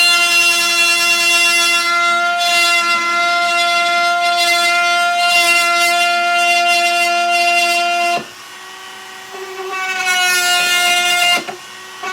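Handheld high-speed power tool cutting a square opening in a plastic box, its motor giving a steady high whine. It stops about eight seconds in, starts again a second and a half later, and cuts out briefly near the end.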